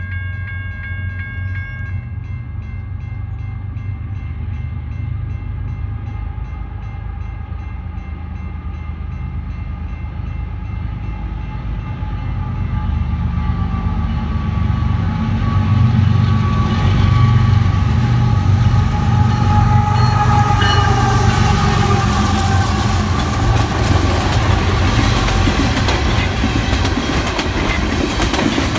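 CSX intermodal freight train approaching and passing: the diesel locomotives' low rumble grows louder about halfway through, with a horn-like tone that drops in pitch as they go by, then the cars clattering over the rails.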